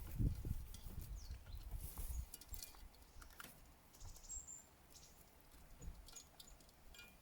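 Birds at an outdoor feeding spot: scattered light taps and clicks, with a brief high chirp about four seconds in. A low rumble runs under the first two seconds.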